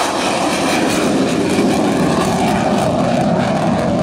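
Jet engines of T-50 trainer aircraft taking off and climbing away: a loud, steady rushing noise.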